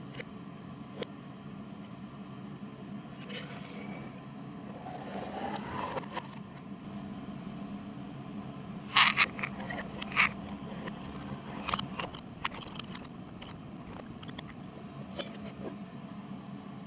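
Cookware being handled: scattered sharp clicks and scrapes of utensils and a small cast-iron Dutch oven, loudest in a cluster about halfway through. About five seconds in, a short sound rises in pitch, like liquid being poured in as the pot fills.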